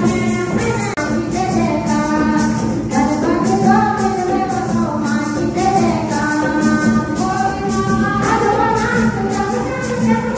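A group of women singing a devotional hymn together, over a steady beat of jingling hand percussion.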